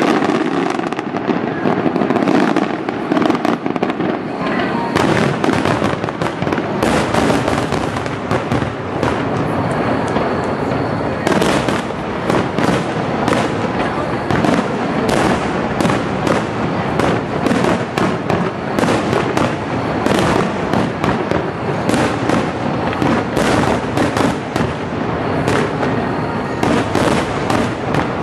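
Fireworks display in a rapid barrage: aerial shells bursting one after another, many bangs a second, with crackle between them. The bangs grow sharper and denser about a third of the way in.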